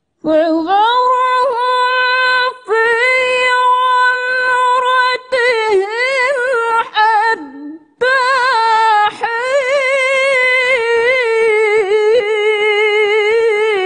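Woman reciting the Quran in the melodic tilawah style, her solo voice carried on a microphone. She holds long, steady notes and adds ornamented wavering runs, with a short break about eight seconds in before the phrase resumes.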